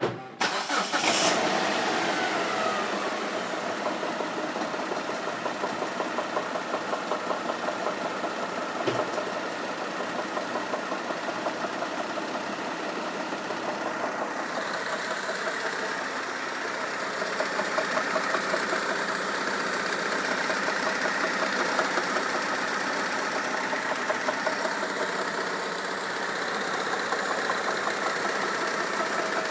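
2004 Kia Optima's 2.4 L four-cylinder engine catching as it starts, then idling steadily at about 1000 rpm with a fast, even knocking that the owner records as an engine knock.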